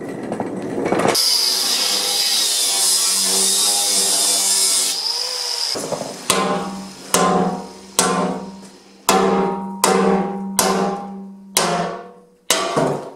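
Rusty thick-walled steel pipe struck with a hammer about eight times, each blow ringing on like a bell as it fades. Before that, a few seconds of steady metallic rolling noise with a high squeal as the loaded trolley's wheels run along the steel rails.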